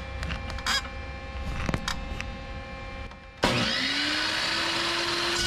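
Porter-Cable metal-cutting chop saw switched on about three and a half seconds in, its motor spinning up with a rising whine and then running steadily at speed, free of the bolt before the cut. Before it starts there are only a few light clicks.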